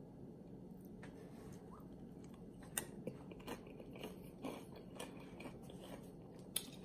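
Faint close-up chewing of a mouthful of tortilla-chip nachos: irregular crisp crunches start about a second in, the sharpest about three seconds in and just before the end, over a faint steady low hum.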